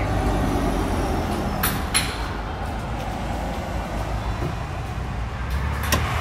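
Street traffic: a car driving by, louder at first and then easing off. Two sharp clicks come about two seconds in.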